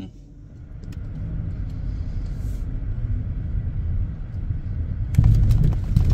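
A car driving: a steady low rumble of engine and road noise that builds over the first second and gets louder about five seconds in.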